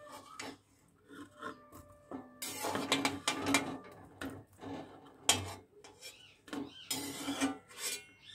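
A perforated steel slotted spoon scraping along the inside of an aluminium kadai while scooping out soaked soya chunks, in several separate scrapes with pauses between them. There is a sharp metal knock about five seconds in.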